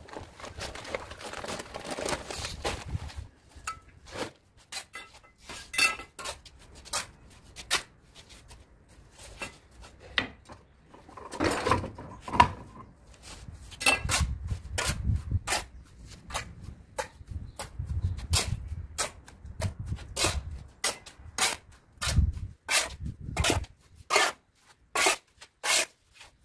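A cement bag emptied onto a sand pile, then a steel shovel scraping and chopping across a tiled floor as sand and cement are turned over to mix mortar. The scraping strokes are short and sharp, and they come quicker and more regularly in the second half.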